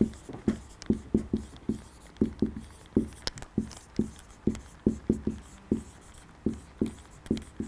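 Whiteboard marker writing on a whiteboard: a run of short, irregular pen strokes, a few each second, as words are written out.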